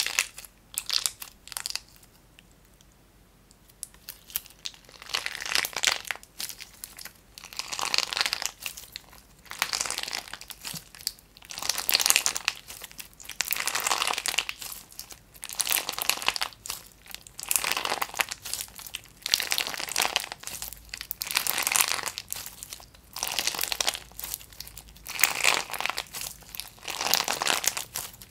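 Clear slime packed with small heart-shaped charms being squeezed and kneaded by hand, giving a dense run of small clicks with each squeeze. The squeezes come about one every second or two, with a pause a few seconds in.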